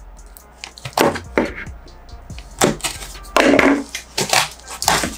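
Packing tape being cut and peeled off a cardboard box: a run of about six short crackling rips and scrapes, the longest a little after three seconds in.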